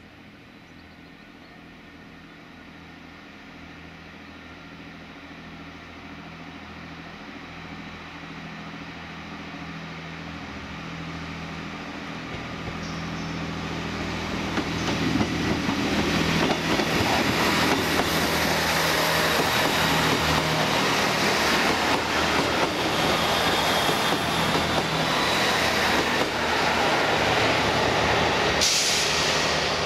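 British Rail Class 158 diesel multiple unit approaching and passing. Its diesel engine hum grows steadily louder over the first half, then gives way to loud rolling wheel-on-rail noise with a thin, high wheel squeal as the train goes by.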